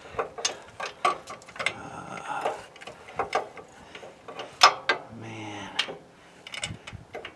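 Irregular metal clicks and clinks of a socket and extension being worked onto an axle bearing retainer plate nut behind a brake backing plate, with one sharper clank about four and a half seconds in.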